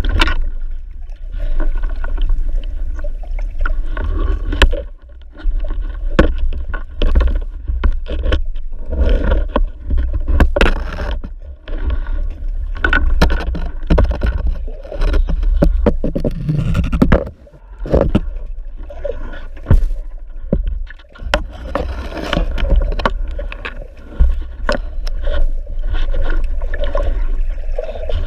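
Underwater sound picked up by a spearfisher's camera: a steady low rumble of moving water, with frequent sharp clicks and knocks throughout and a brief lull about seventeen seconds in.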